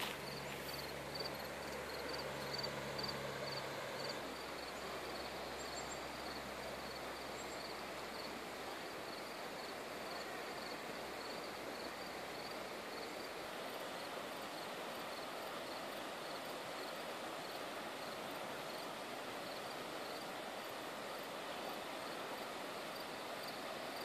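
Steady rush of a wide, shallow river flowing over gravel, with a faint high tick repeating about three times a second. A low hum fades out about four seconds in.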